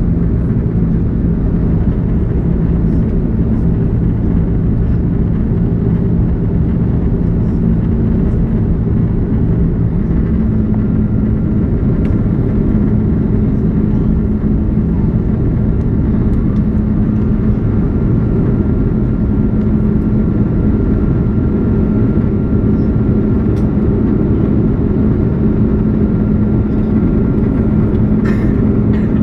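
Steady jet-engine rumble and hum of an Airbus A330, heard inside the passenger cabin. About a third of the way in, the engine hum steps up slightly in pitch and a faint higher whine joins it.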